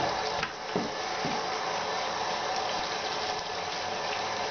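Kitchen tap running steadily into a stainless steel sink as fish fillets and a plastic cutting board are rinsed under it, with a few light knocks in the first second or so.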